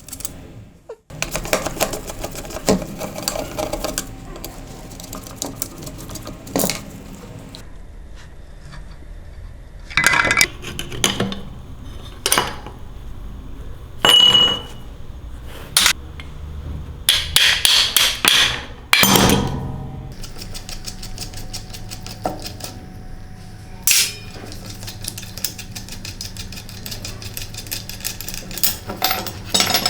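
Metal parts and hand tools clinking, knocking and clanking irregularly as rusty scooter parts are worked on, with a low steady hum underneath.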